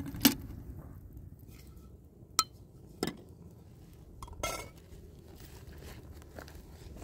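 A glass of tea and its saucer clinking against a metal kettle as they are handled and set down: four separate sharp clinks, the first the loudest.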